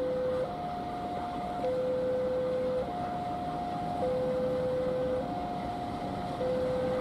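Railway level-crossing alarm sounding: an electronic two-tone signal that alternates between a higher and a lower note, each held a little over a second. Under it is the low rumble of a diesel locomotive passing slowly.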